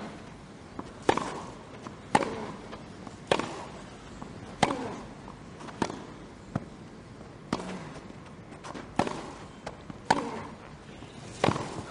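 Tennis rally: racquets strike the ball in turn, about ten sharp hits spaced roughly a second apart.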